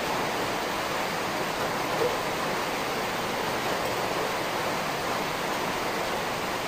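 Steady, even hiss of background noise with no distinct knocks or clicks.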